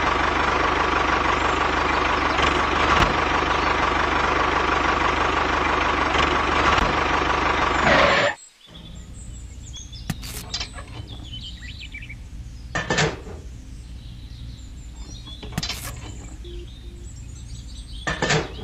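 A steady engine running sound with a faint high whine in it, which cuts off abruptly about eight seconds in. After that there is a much quieter background with faint bird chirps and a few sharp clicks.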